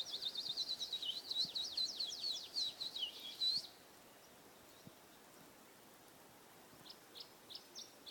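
A small songbird singing: a fast, twittering run of high notes for about three and a half seconds, then after a pause it starts again near the end with a few separate chirps.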